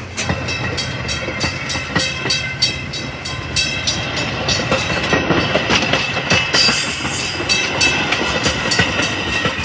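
Metra bilevel gallery passenger cars rolling past at close range. The wheels clack in a rapid, steady rhythm over the rail joints, over a low rumble and a steady high-pitched whine.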